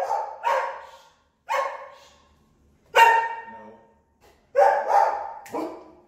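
Belgian Malinois dogs barking in an excited frenzy at the front door, the alarm barking that the doorbell sets off. About seven loud, sharp barks come in quick pairs and singles with short gaps between.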